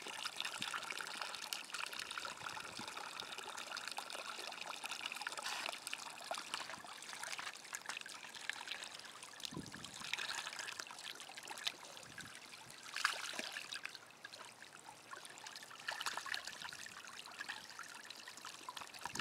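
Water jets of an inflatable sprinkler splash mat spraying steadily and falling back onto the mat, with a few louder splashes about ten, thirteen and sixteen seconds in.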